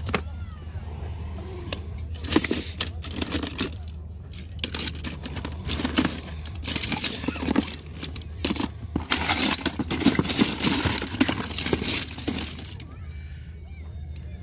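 Die-cast metal toy cars, mostly Hot Wheels, clattering and clinking against each other and the plastic tub as a hand rummages through the pile, in bursts of rapid clicks.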